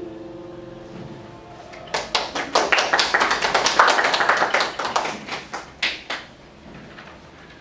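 The last piano chord of a song fading away, then a small group clapping for about four seconds.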